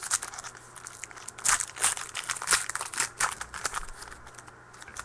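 Crinkling of a trading card pack wrapper and cards being handled, an irregular run of rustles and clicks, loudest in the middle.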